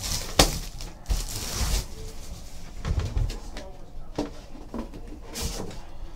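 Plastic shrink-wrap on a trading card hobby box crinkling and rustling as the box is unwrapped and handled, with a few light knocks of the box being moved.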